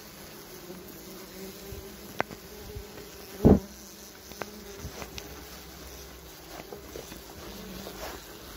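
Wasps buzzing in and around their paper nest, a steady low hum, with a few short sharp ticks and one louder thump about three and a half seconds in.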